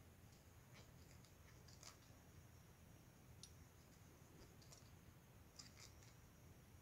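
Near silence with faint, irregular small clicks and ticks: a metal crochet hook working polypropylene thread, stitch by stitch.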